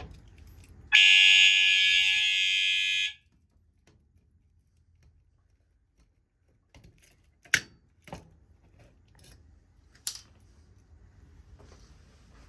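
Fire alarm horn sounding steadily for about two seconds, starting about a second in, set off by the pulled Mircom pull station, then cutting off suddenly. The short sounding is the system's walk-test signal. A few sharp clicks follow later as a key turns in the pull station's lock to reset it.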